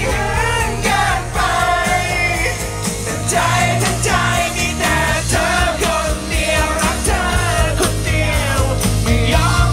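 Rock band playing live with a lead vocalist singing a melody of long held notes over bass, guitar and drums.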